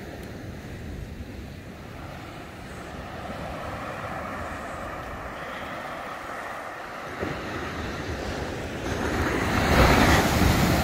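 Surf breaking on the beach with wind buffeting the microphone, a steady wash that swells loudest near the end.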